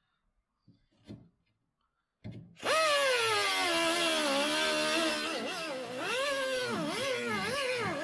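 Near silence for about two and a half seconds, then an air-powered cut-off wheel starts with a high whine. Its pitch sags and then dips and recovers again and again as the wheel cuts through the sheet steel of the truck's door bottom.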